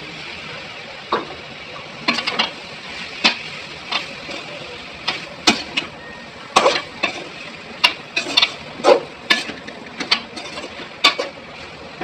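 Spoon stirring okra into sizzling onion-tomato masala in a kadai: irregular scraping clanks against the pan over a steady sizzle.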